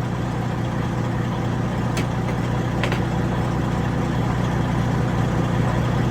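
Diesel engine of a 2007 Freightliner Century truck idling steadily, with a couple of faint clicks about two and three seconds in.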